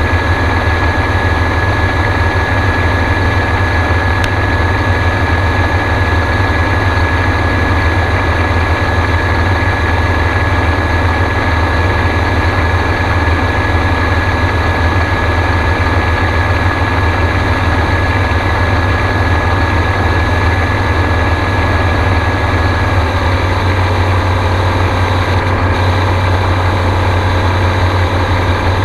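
Gyrocopter engine and pusher propeller running steadily, a loud continuous drone with a heavy low rumble. The engine note shifts slightly about two-thirds of the way through.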